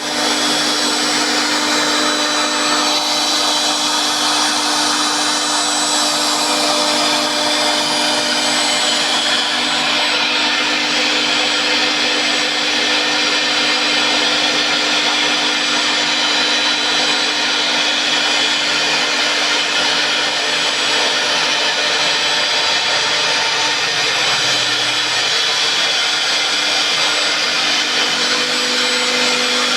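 CNC machine running: a loud, steady motor whine with several held tones over a broad hiss.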